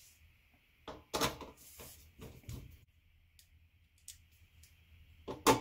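Sharp metallic clicks and knocks as screws are driven with a screwdriver to fix a caster plate to a chest freezer's sheet-metal base. A cluster of knocks comes about a second in, a single click around four seconds, and the loudest knock near the end.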